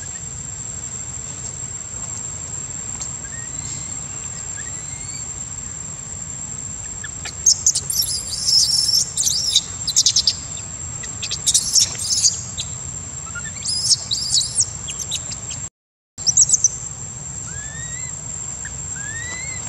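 Outdoor ambience of birds chirping over a steady high-pitched insect drone. Several bursts of loud, quick high chirps come in the middle, and a few short rising bird whistles come before and after them.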